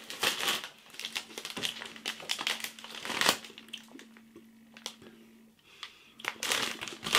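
Jacob's Mini Cheddar Sticks, crunchy baked cheese snack sticks, being chewed with crisp crunching that comes in several spells, with a lull about five seconds in.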